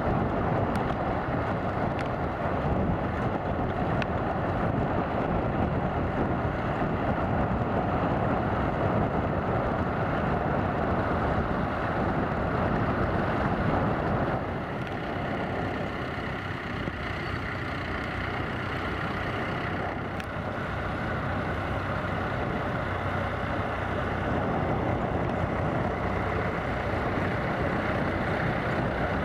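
Vintage tractor engine running steadily while ploughing. It becomes a little quieter about halfway through, then picks up again near the end.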